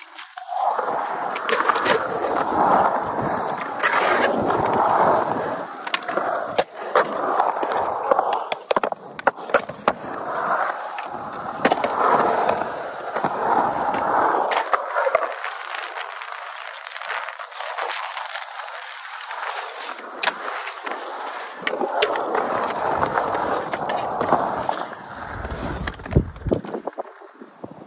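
Skateboard wheels rolling and carving on concrete, with sharp clacks and knocks as the board hits coping and ledges during tricks. The rolling thins out for a few seconds in the middle.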